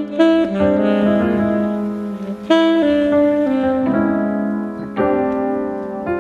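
Background music: a jazzy instrumental with piano and saxophone, in held chords that change every second or so.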